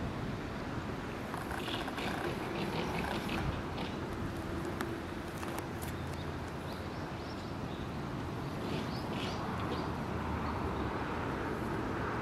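Two short series of high chirping bird calls, one about a second and a half in and another near nine seconds, over a steady low background rumble.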